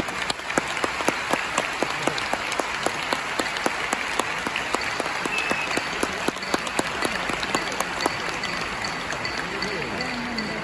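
Large arena audience applauding steadily, many separate hand claps standing out in the din.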